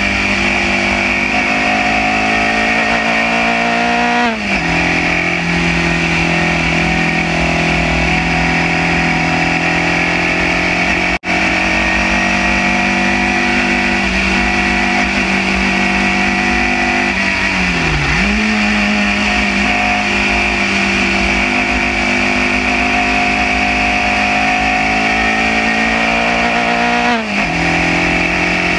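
Onboard engine of a Formula Junior single-seater racing car pulling hard. Its pitch climbs slowly and drops sharply at gear changes about 4 seconds in and near the end, with a dip and recovery about 18 seconds in. The sound cuts out for an instant about 11 seconds in.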